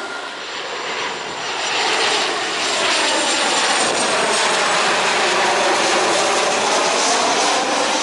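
Boeing 737-800 airliner's turbofan engines passing low overhead on approach to land: a loud, steady jet roar and hiss whose tone sweeps slowly as the aircraft goes by, after a brief dip about a second in.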